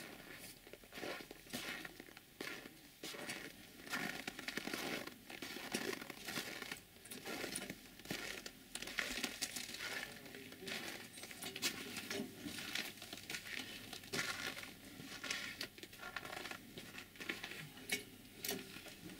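Irregular crunching and rustling of footsteps on packed snow and of hands handling tools during a wheel change.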